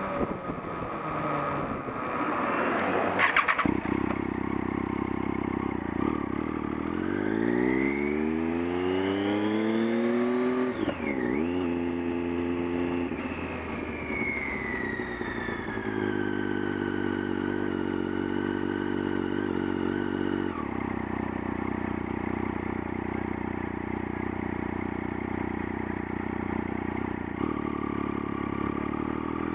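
Vehicle engine running in neutral, with a harsh buzzing over it for the first three and a half seconds: the strange buzz the owner is trying to trace. The engine then rises in speed, dips briefly, falls back and settles to a steady idle.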